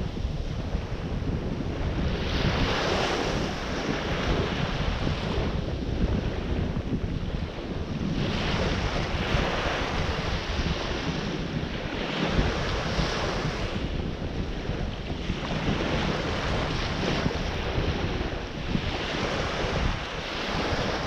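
Ocean surf breaking and washing up on a beach, with waves swelling and fading every few seconds. Wind buffets the microphone with a steady low rumble.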